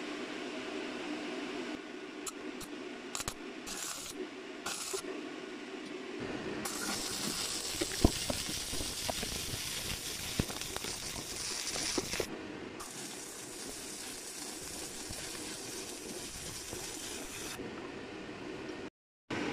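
Electric arc welding on a steel hatchet head. A few short arc strikes come about two to five seconds in, then the arc runs with a steady crackling hiss and occasional sharp pops for about six seconds, stops briefly, and runs again for about five seconds.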